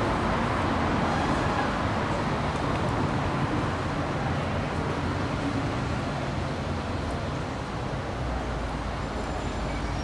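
Steady road traffic on a city street: cars and buses passing, a low engine rumble under a wash of tyre and road noise that eases slightly midway.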